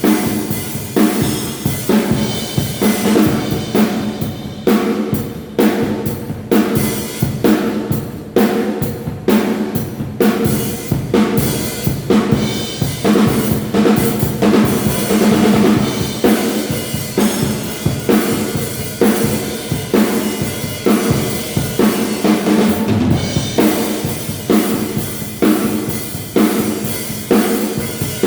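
A drum kit played continuously, with snare, bass drum and cymbals in a dense run of strokes, as the kit is played through in a soundcheck.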